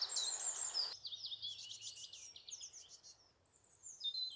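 Several small songbirds singing together. Among them is a common chiffchaff repeating its two-note 'chiff-chaff' song. A steady background rush cuts off abruptly about a second in.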